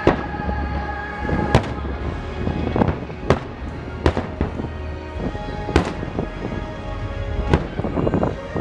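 Aerial fireworks shells bursting overhead: a string of sharp bangs at irregular intervals, roughly one a second, over a steady low rumble.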